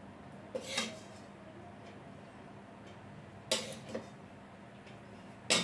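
A spoon scraping and clinking against a cooking pan and plate as curry is served out: a short scrape about half a second in, two more around three and a half to four seconds, and another near the end.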